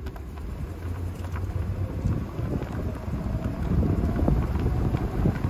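Wind buffeting the microphone: a low, gusting rumble that swells a little louder in the second half.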